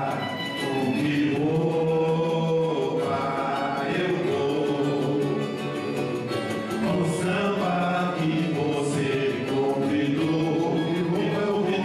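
Live acoustic band with guitars playing a song, with men's voices singing together over a steady strummed rhythm.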